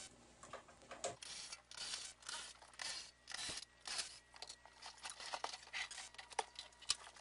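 Irregular scraping, rustling and clicking from hands working the built-in microwave loose from its cabinet.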